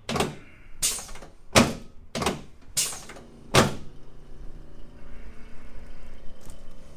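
Six sharp thumps in an even rhythm, about two-thirds of a second apart, from a chiropractic treatment of a patient lying face down on the table, followed by a steady low hum after about four seconds.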